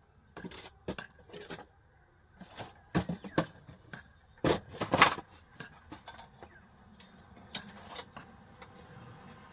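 An irregular series of clicks, knocks and short scrapes of hard objects being handled, loudest about halfway through.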